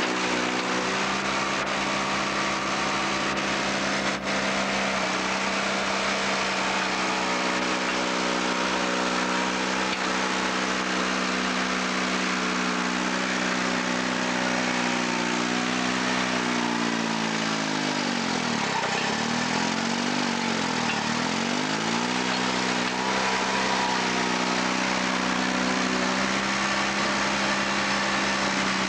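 The 1956 Allis-Chalmers HD 5 crawler loader's Detroit Diesel 2-71 two-stroke engine runs steadily. Around the middle its pitch drops twice, lugging down under the load of digging and lifting dirt, and picks back up each time.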